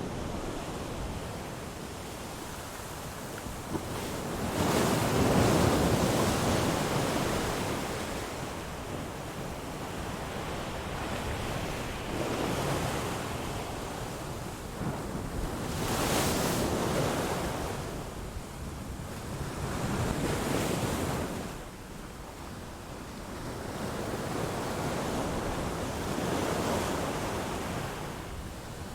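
Ocean waves surging and washing in, the rush of water swelling and fading every four to six seconds.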